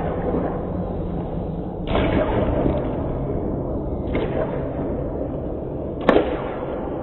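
Hockey skates scraping and carving on rink ice, with louder scrapes about two and four seconds in. A single sharp crack about six seconds in is the loudest sound.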